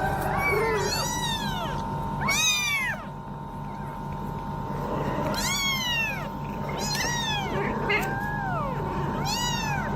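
A cat meowing repeatedly, about six drawn-out calls that rise and fall in pitch, spaced a second or more apart, over a steady faint tone.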